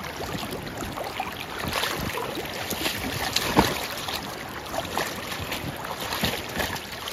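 Shallow river water splashing irregularly around a steelhead being handled in the current, over the steady rush of the stream. A sharper splash comes about three and a half seconds in.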